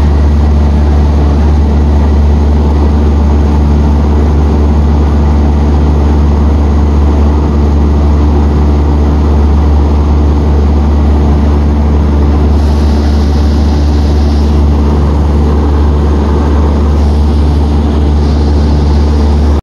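Commercial refrigeration condensing unit running: a loud, steady low hum of the compressor and condenser fan. Two stretches of added hiss come in the second half.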